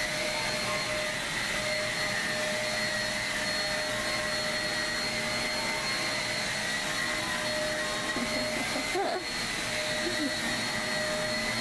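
Upright vacuum cleaner motor running steadily, a constant rushing hum with a high whine.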